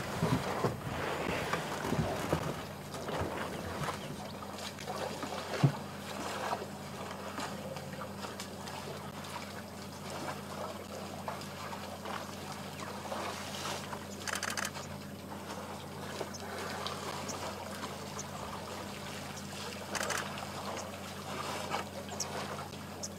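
Elephant herd drinking at a waterhole: faint trickling and splashing of water over a steady low hum, with a few short clicks now and then.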